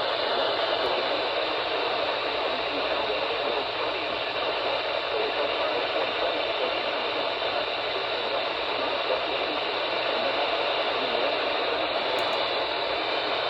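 Steady hiss of radio static from a receiver tuned to a NOAA Weather Radio frequency, with no voice or tone coming through.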